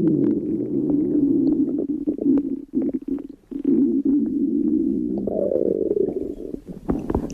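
A hungry person's stomach growling and gurgling: a continuous low rumble full of small pops, which stops for a moment about three seconds in and then carries on.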